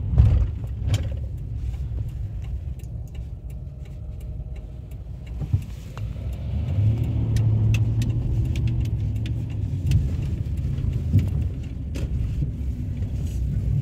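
A car driving, heard from inside the cabin: a steady low engine and road rumble that grows louder about six seconds in, with scattered light clicks and rattles.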